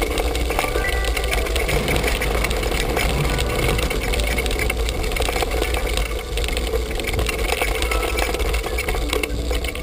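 A quiet, sparse stretch of background music: a few faint held notes over a steady rushing noise.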